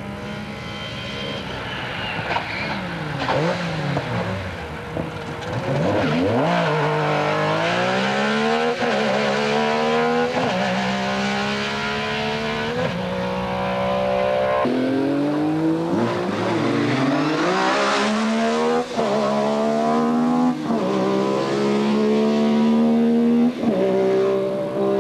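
Metro 6R4 rally car's V6 engine accelerating hard through the gears, growing louder over the first few seconds. The pitch climbs and drops back at each gear change, several times over.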